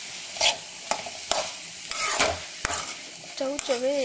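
Perforated metal spatula stirring and scraping diced chayote around an aluminium kadai, in sharp strokes over a steady sizzle of frying. A voice with a wavering pitch comes in near the end.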